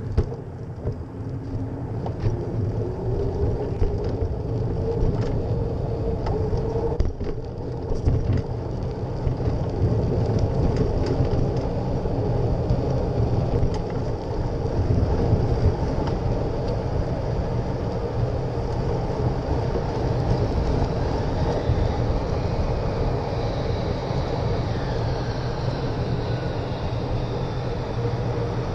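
Steady rumble of wind and road noise on an action camera mounted on a moving bicycle, with tyres rolling over pavement. There are a few sharp knocks and rattles in the first several seconds as the bike goes over bumps.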